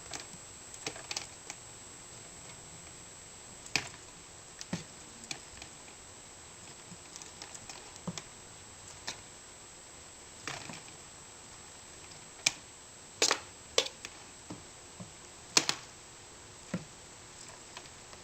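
Irregular light taps, clicks and soft thumps of a cat pouncing on and batting a fluffy feather toy, its paws striking the toy and floor, over a faint steady hiss. The louder, quicker taps come in a cluster past the middle.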